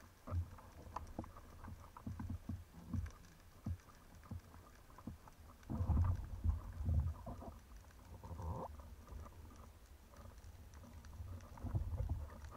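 Underwater handling noise heard through a camera housing: irregular dull knocks, thumps and light clicks as a speargun and a speared corvina are handled, with louder clusters about six seconds in and near the end.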